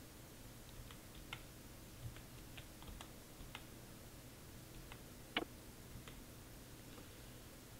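Faint, scattered keystrokes on a computer keyboard as a word is typed, with one louder key click a little past halfway.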